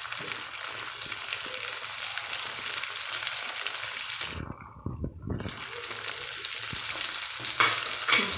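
Tomato wedges and grated cheese sizzling in butter and olive oil in a frying pan over lowered heat. The sizzle drops away for about a second halfway through, and two sharp knocks come near the end.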